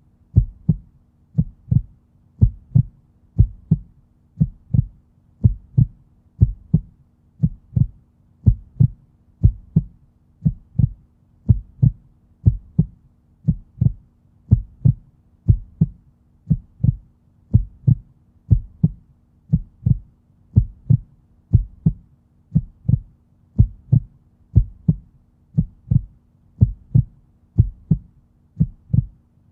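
Heartbeat: a steady, even lub-dub double beat at about one beat a second, low-pitched.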